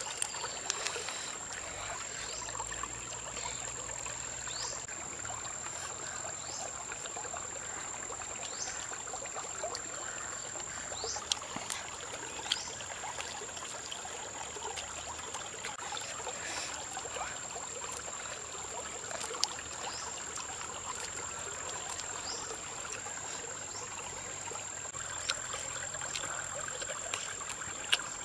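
Small stream running, a steady trickling rush of water, with a steady high-pitched tone over it and a few sharp clicks here and there.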